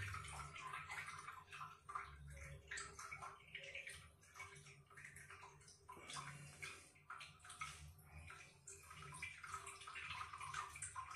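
Toilet tank refilling through its fill valve after the supply was opened: faint, continuous trickling and splashing of water into the tank.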